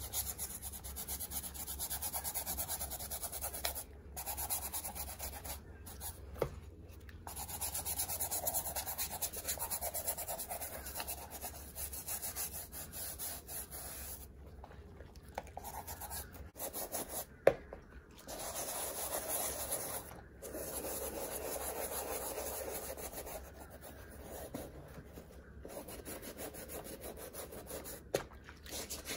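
Plastic nail brush scrubbing a wet leather handbag in soapy water: quick, even brushing strokes in runs broken by short pauses. A single sharp click comes a little past the middle.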